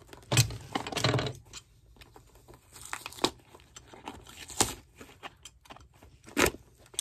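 Pliers pulling and tearing crumbly, glued-on material off the footbed of an unsoled shoe: a run of short, irregular scratchy tearing sounds, busiest in the first second and a half, then a few single sharper ones.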